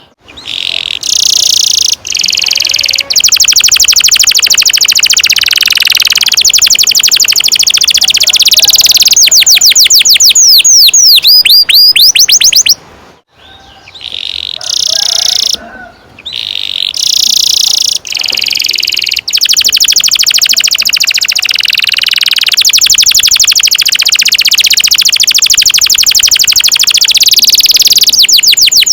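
Domestic canary singing long rolling trills: very fast repeated high notes run together into phrases several seconds long, broken by a couple of short pauses a little under halfway through, with runs of quick sweeping notes in the middle and near the end.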